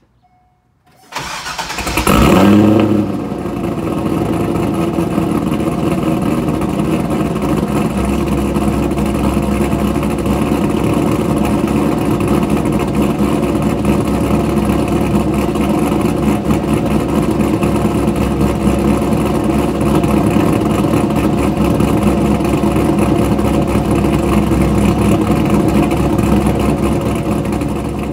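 1998 C5 Corvette's 5.7-litre LS1 V8, fitted with LS6 heads and intake and a T-Rex camshaft, is cranked about a second in, catches and flares up, then settles into a steady idle through Kooks long-tube headers and a titanium axle-back exhaust. This is the first start after the top-end swap.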